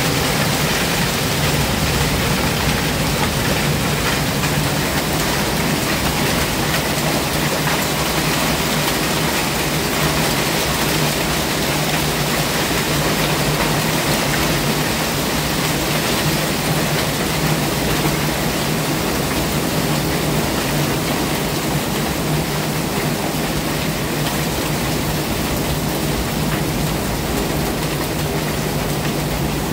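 Rain falling steadily, a loud even hiss of downpour, with a steady low hum underneath.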